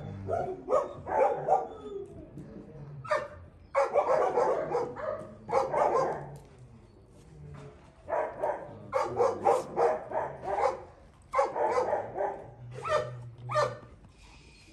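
Dogs barking in repeated bouts over a slaughtered calf that they are feeding on, with a short lull about halfway through.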